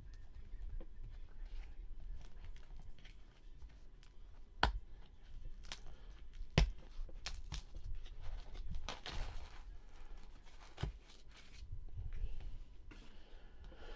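Hands working trading cards out of a foam-lined box: rustling and scraping of card and paper, with three sharp clicks or taps.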